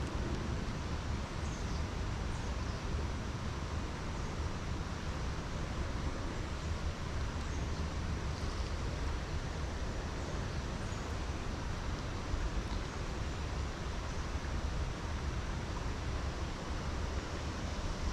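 Steady rushing of a rain-swollen, fast-moving creek, with a low rumble underneath.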